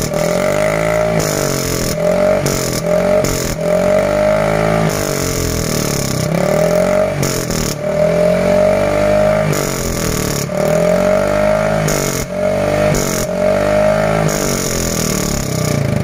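Yamaha Fino 125 scooter with a gutted ("bobol") muffler, revved over and over in short blips, its loud exhaust note rising and falling about nine times.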